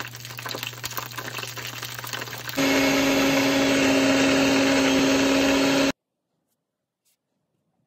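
Dumplings frying in a pan of oil, sizzling and crackling, for the first two and a half seconds. Then a Tescom TME830 mini blender's motor runs loud and steady with a fixed hum, chopping green onions, for about three seconds before cutting off abruptly.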